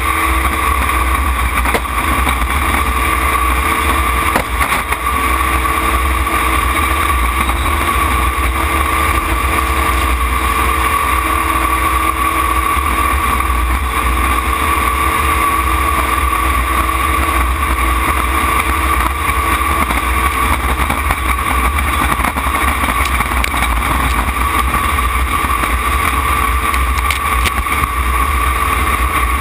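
Racing jet boat's engine running steadily at racing speed, heard from inside the open cockpit with rushing wind and water.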